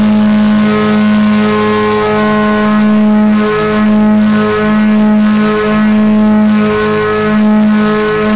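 DJI Mavic 2 Pro's propellers and motors humming in flight, heard close up: a loud, steady, pitched hum that wavers slightly about once a second.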